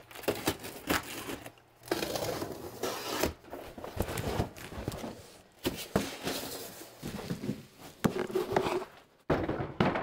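Cardboard packaging being handled as a box is opened: scraping, crinkling and tearing of cardboard, with irregular knocks and thuds as the portable fridge is lifted out and set down on a shelf.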